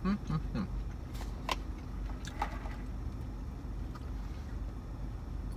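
Steady low hum of a car cabin. Over it, a short closed-mouth "mmm" comes in the first moment, then a few small clicks from eating and handling food.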